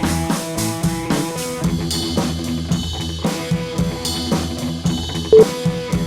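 Upbeat background music with a steady drum-kit beat and guitar. A single short, loud beep sounds near the end.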